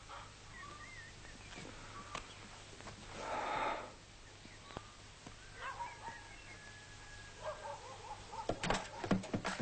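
Scattered animal calls with short warbling cries and a longer held cry, then a quick cluster of knocks near the end.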